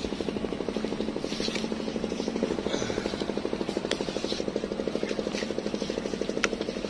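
A small engine running steadily with a rapid, even chugging, and a couple of sharp clicks.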